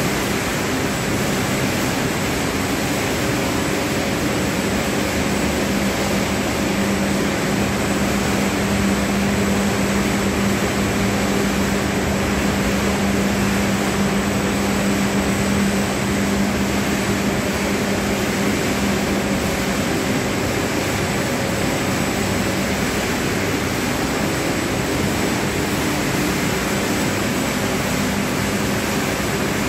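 Grain cleaning machine running: a steady rushing noise with a low hum.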